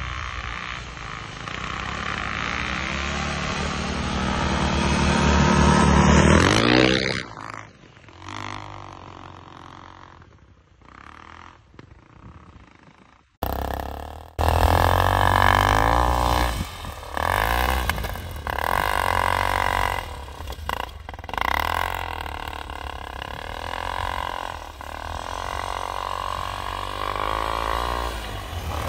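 Snowbike (a pit bike with a Snowmot track kit) engine revving as it rides through snow, its pitch rising and falling with the throttle. The engine climbs to a loud peak about six seconds in, falls away, then cuts in loud again about fourteen seconds in and keeps revving up and down.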